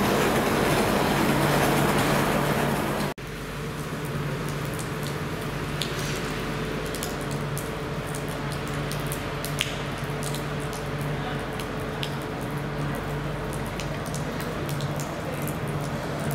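Rain on a wet asphalt railway platform: a steady patter scattered with sharp ticks of single drops splashing and dripping, over a low steady hum. A louder, even rushing noise fills the first three seconds and ends abruptly.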